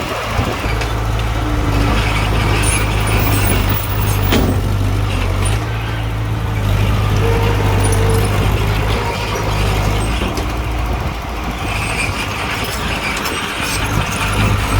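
Bulldozer's diesel engine running steadily under load while pushing soil, with scattered metallic clicks and one sharp knock about four seconds in.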